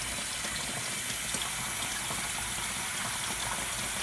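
Steady rush of water in a Kuppet twin-tub mini washing machine running its wash cycle.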